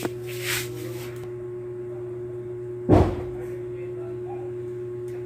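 A single dull knock about three seconds in, over a steady low hum, during work at a window frame being sealed.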